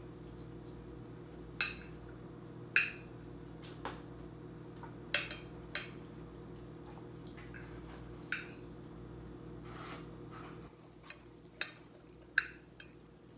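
Metal spoon clinking and scraping against a glass plate while food is scooped up: about nine sharp clinks, irregularly spaced, over a steady low hum.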